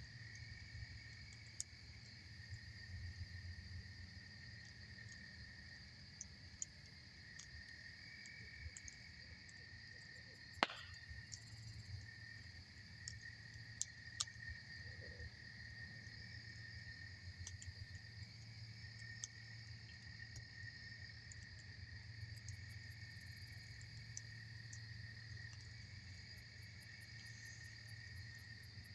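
Campfire crackling with scattered sharp pops; the loudest pop comes about ten seconds in. Beneath it, insects chirr steadily.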